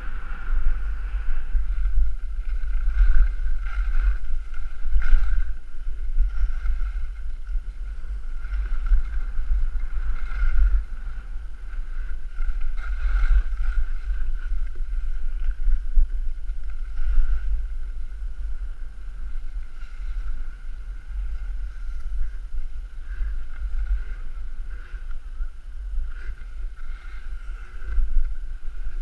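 Small quadcopter drone's electric motors and propellers, a steady high whine, over heavy wind rumble on the camera microphone as it flies.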